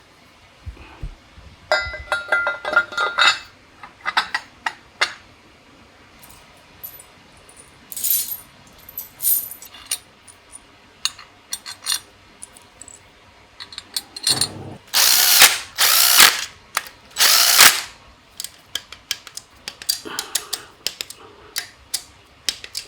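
Mechanic's hand tools working on engine parts during reassembly: a ratchet wrench clicking and scattered metal clinks and taps, with three loud one-second bursts of noise about two-thirds of the way through.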